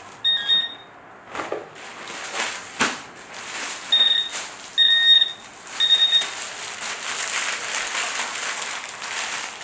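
Four short electronic beeps, each one steady high tone, from a metal-detecting pinpointer probe that has been left switched on. A crinkling rustle of packaging being handled fills the last few seconds.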